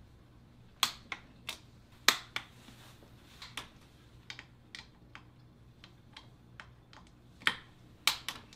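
A wrench on the transmission case bolts while they are torqued to spec: a series of sharp, irregularly spaced clicks, the loudest about a second in, about two seconds in, and twice near the end.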